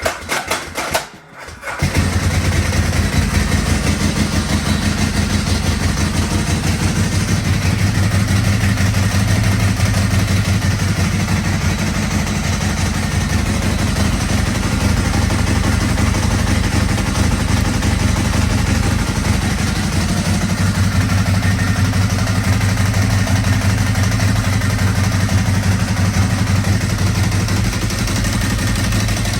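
Ducati motorcycle engine being started: the electric starter cranks briefly, the engine catches about two seconds in, then idles steadily.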